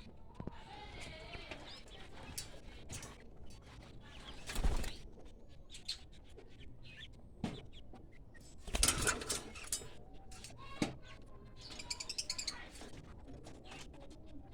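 Pet parrots chirping in short scattered calls, with two louder rustling bursts, one about a third of the way in and one about two-thirds in.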